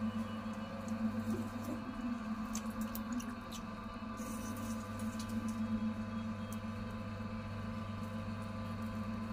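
Potter's wheel running with a steady hum while wet clay squelches under the hands shaping a tall clay pot. A few light clicks come about two and a half to three and a half seconds in.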